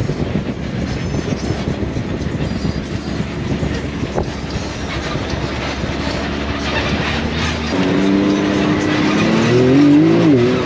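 Off-road vehicle ride: a steady low rumble of wheels over dirt with wind noise. About eight seconds in, an engine note comes in and rises and falls as it revs.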